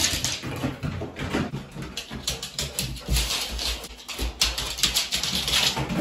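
A dog making noises as it plays with a shoe and moves about on a wooden floor, in short bursts about once a second.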